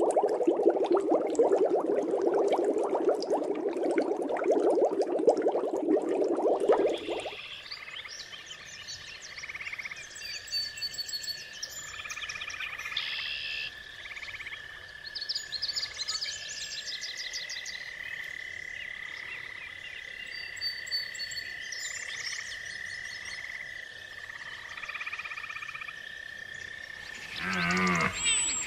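Aquarium water bubbling loudly for about the first seven seconds, then a chorus of frogs calling in repeated trills over a steady high tone. Near the end a cow elk gives a short high call that glides upward.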